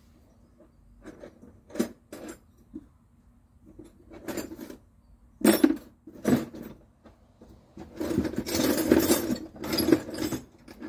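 Metal spanners clinking and rattling against each other as they are picked out and sorted through, with separate sharp clinks and then a dense jangling rattle near the end.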